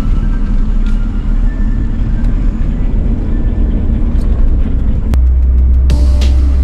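Cabin sound of a 1990 Honda Civic hatchback on the move: steady engine and road rumble. About five seconds in there is a click, and the rumble turns deeper and steadier, with sharp ticks near the end.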